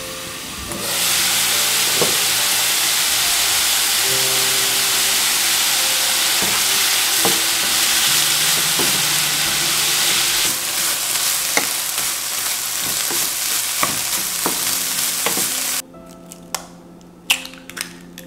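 Cubed chicken breast sizzling in olive oil in a frying pan over low heat, stirred and scraped with a wooden spatula, with a few clicks from the spatula. The sizzling cuts off abruptly near the end, followed by a few sharp clicks of an egg shell cracking against a bowl.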